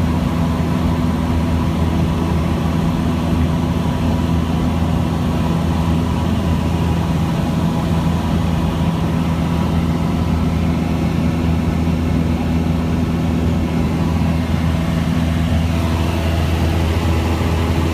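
Airplane engine and propeller droning steadily, a constant low hum with a noisy rush over it, as heard during flight.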